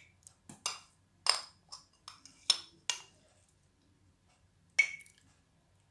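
Metal spoon clinking and scraping against glass while oily herb powder is spooned into a glass jar. There is a quick run of clinks in the first three seconds and one more near five seconds, a few of them with a short glassy ring.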